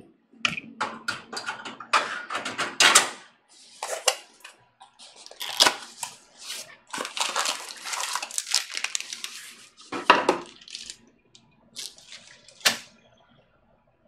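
Small metal hardware and the sheet-steel PC case being handled: irregular clinking, clicking and rattling, with a few sharper knocks.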